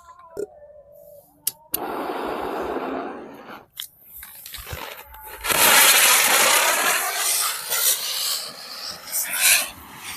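Cock brand chakri (ground spinner firework) lit and going. Its fuse fizzes from about two seconds in, then from about halfway the spinner runs with a loud, steady hiss of spraying sparks.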